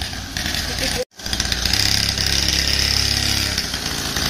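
Small petrol engine of a mini dirt bike running steadily with a chainsaw-like buzz as it is ridden, briefly cutting out for an instant about a second in.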